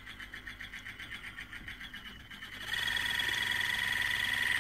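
EBM-papst Q-series shaded-pole fan motor running on worn sleeve bearings, with a low mains hum and a fast rhythmic scraping pulse. About two-thirds of the way in, a louder, steady high-pitched whine sets in. The noise is the sign of worn, dry sleeve bushings with play in the shaft.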